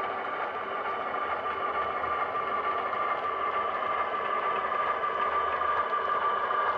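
HO scale model diesel locomotive running along the yard track with a cut of freight cars: a steady hum with a high whine that grows slowly louder as it approaches.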